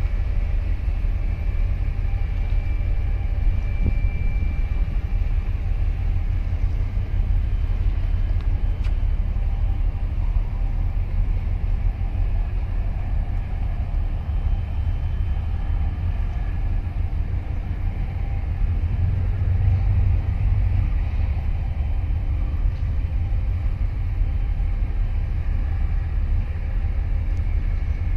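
Steady low rumble of a large container ship's engines as it moves out through the harbour, with faint steady tones above the rumble.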